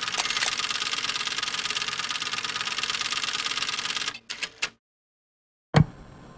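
Fast, even mechanical clatter that stops about four seconds in, followed by a few separate clicks. After a short silence there is a sudden thump near the end, then a faint hiss.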